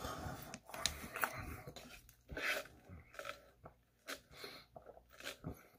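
A person chewing food close to the microphone, with soft scattered mouth clicks, then sipping a drink from a paper fast-food cup.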